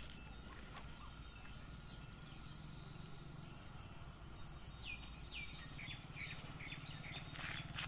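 Birds chirping outdoors, a run of short downward-sweeping calls in the second half, over a faint steady low hum. A brief rattle comes near the end.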